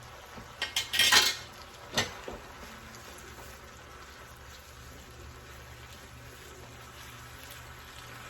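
A utensil clatters and scrapes against a pan several times in the first two seconds as thin spaghetti is stirred into a tomato, onion and garlic sauce. The pan then sizzles faintly and steadily.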